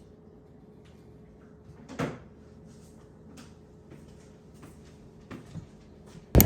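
A few soft knocks and clicks over a faint steady hum, with one louder thump about two seconds in and two small knocks near the end.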